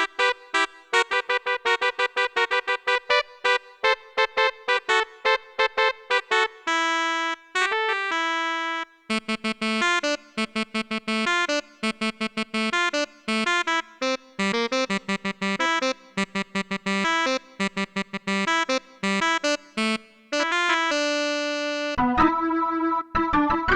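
Electronic keyboard synthesizer playing a fast riff of short, staccato repeated notes and chords, with a few longer held notes between phrases.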